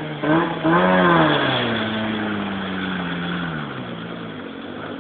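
Trials car engine revving hard in surges, its pitch swinging up and down, then holding a steady note that slowly falls and fades over the last couple of seconds.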